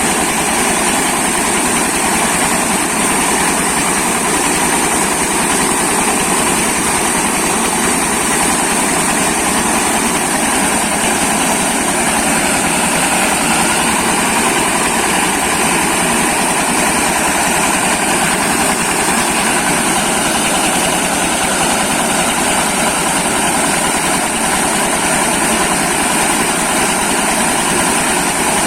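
Corn milling machine running at a steady speed: a loud, unbroken mechanical din with a constant high whine on top.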